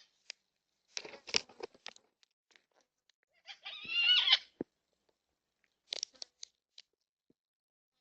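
Yellow-tailed black cockatoos at a seed feeder: bursts of crunching and clicking as seed is cracked and husked. A single harsh call, under a second long, comes about four seconds in and is the loudest sound.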